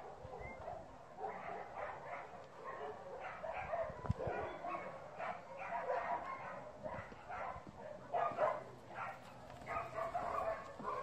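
Dog barking over and over, in short separate barks.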